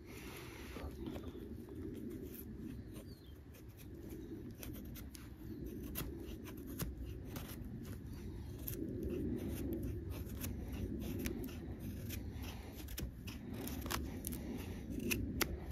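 Knife carving feather sticks from firewood: quiet, irregular scraping strokes of the blade on the wood, with small clicks.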